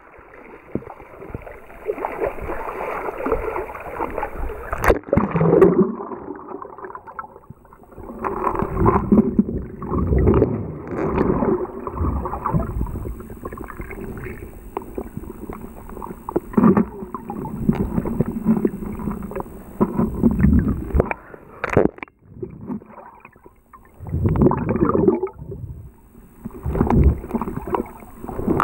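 Muffled underwater sound of river water rushing and gurgling around a camera held beneath the surface by a swimmer, swelling and fading in irregular surges as it moves through the water. A sharp click about five seconds in and another about twenty-two seconds in.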